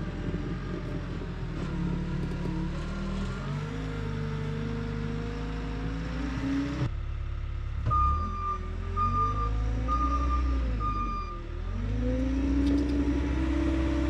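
Trencher engine running, its pitch rising and falling as the load changes. A backup alarm beeps four times, about a second apart, midway through.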